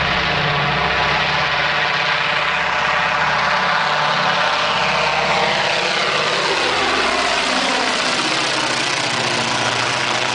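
Junkers Ju-52's three radial engines running loud at takeoff power as the aircraft lifts off and passes close by. The engine note drops in pitch through the second half as it goes past and climbs away.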